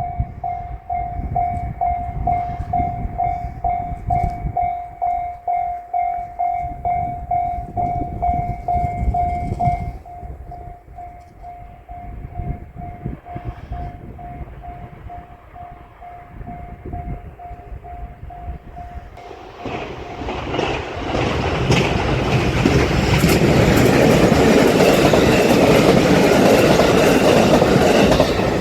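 Japanese level-crossing alarm ringing with an evenly pulsing tone, about two rings a second, growing fainter about ten seconds in. About twenty seconds in, an electric train approaches and passes through the crossing, and the noise of its wheels on the rails rises and stays loud.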